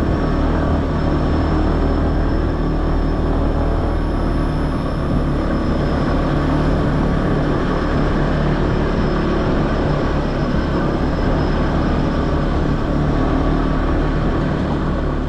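Honda ADV150 scooter's single-cylinder engine running steadily while riding, mixed with dense wind and riding noise.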